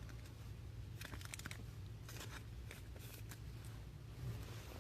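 Faint soft ticks and rustles of trading cards being handled, over a low steady hum.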